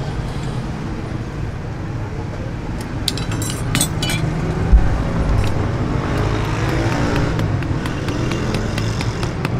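A steady engine-like rumble runs throughout. About three to four seconds in come a few light metallic clicks, then a single heavy thump: hot steel in tongs being set down on an anvil.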